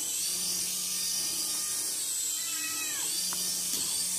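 Steady buzz of a small light-up flying ball toy's motor and propeller, its pitch wavering, with a cat giving a short falling meow about two and a half seconds in.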